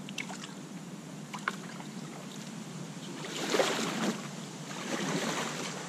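Kayak paddles splashing in river water as an inflatable kayak pulls away from the bank. There are a few light knocks at first, then two surges of splashing strokes, the loudest about three and a half seconds in.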